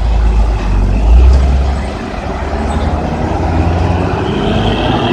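A large bus's diesel engine pulling away. The low rumble swells to its loudest about a second in, then settles to a steady run.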